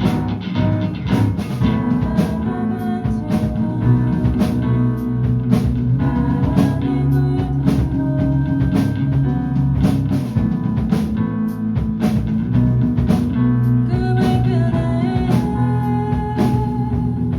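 A live rock band playing a song with drum kit, bass, electric guitar and piano, the drums keeping a steady beat under sustained bass notes and chords.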